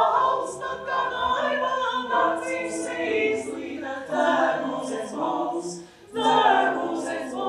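Mixed choir of men's and women's voices singing a cappella in Latvian, in sustained chords with crisp sibilant consonants. The singing drops away briefly about six seconds in, then comes back in at full strength.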